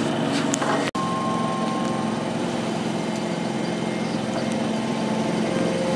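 Docklands Light Railway train at the platform, its electrical equipment giving a steady hum of several low tones, with a brief break in the sound about a second in.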